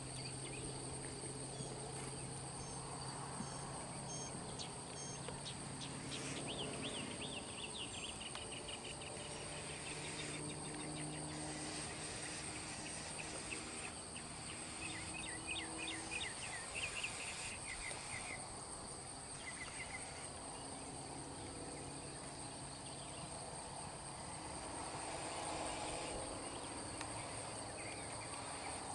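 Outdoor insect chorus of crickets or cicadas: a steady high-pitched drone, with a bird chirping in two short runs of quick notes partway through.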